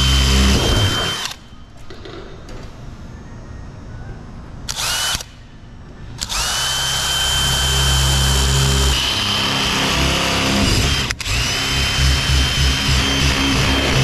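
Cordless drill boring into painted sheet metal, with a steady motor whine. It runs for about a second at the start, gives a short burst about five seconds in, then runs steadily from about six seconds on, stopping for a moment near eleven seconds.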